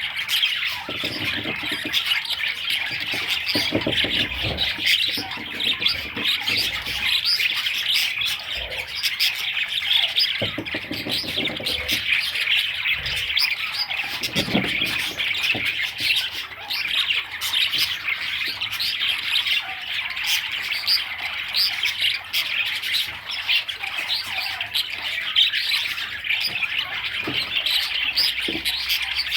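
A flock of budgerigars chattering continuously, with many overlapping chirps and squawks.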